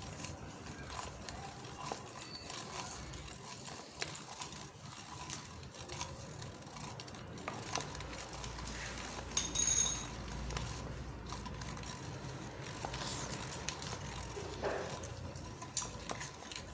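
Light clicks, taps and rustles of a spoon and small containers being handled while mixing ingredients, with a brief high-pitched sound just before ten seconds in.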